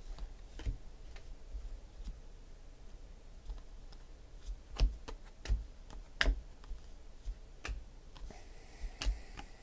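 2016 Panini Select football cards being flipped through by hand, each card snapping against the stack in a sharp click at irregular intervals of about a second; the loudest clicks come about five and six seconds in.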